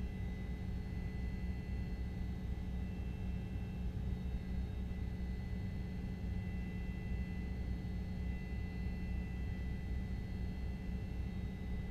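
Steady low rumble of a moving vehicle, with a few faint steady whining tones above it.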